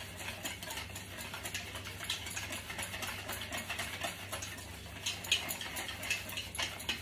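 A fork whisking Caesar dressing, thickened with grated cheese, in a steel bowl: a steady run of quick small clicks and scrapes of metal on metal.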